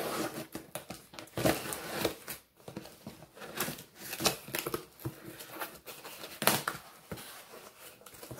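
A knife slitting packing tape on a cardboard shipping box, making irregular scraping and tearing strokes, and the cardboard flaps being pulled open.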